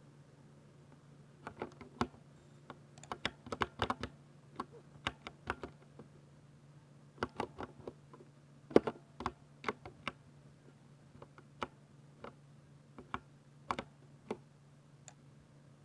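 Typing on a Ducky 60% mechanical keyboard with silver switches: quick irregular runs of keystroke clicks starting about a second and a half in, with a pause around six seconds and sparser presses near the end. A faint steady low hum sits underneath.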